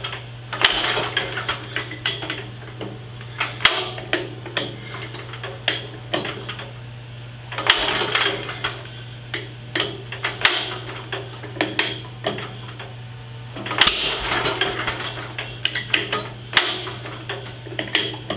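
A 1946 Wisconsin air-cooled engine being hand-cranked on a cold start, in repeated bursts of clanking with sharp knocks. It pops as it fires but does not catch, because the choke knocks off with each pop.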